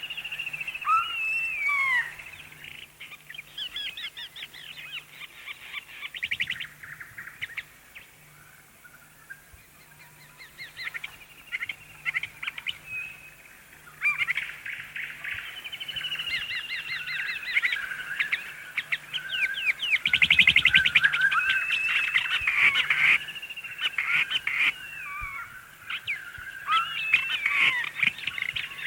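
Several small birds chirping and trilling together: a busy chorus of overlapping calls with rapid trills that swells louder about two-thirds of the way through.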